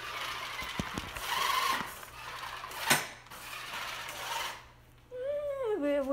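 Small electric motor of a radio-controlled monster truck whirring as the truck drives across a tile floor, with a sharp knock about three seconds in. Near the end a pitched voice starts, rising and falling.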